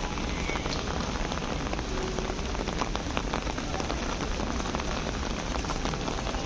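Steady rain falling on a city street, with individual drops ticking close by.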